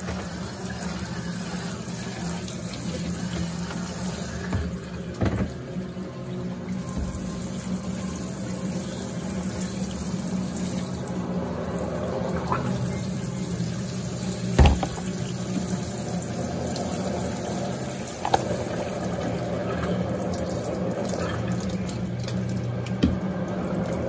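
Water pouring from a plastic watering can's sprinkler rose into the steel tub of a top-load washing machine, splashing steadily, with a low steady hum underneath. A few knocks come through it, the loudest about halfway.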